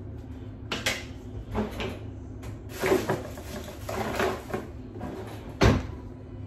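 Objects being handled and moved about: a run of short rustles and clicks, with one sharp knock about five and a half seconds in.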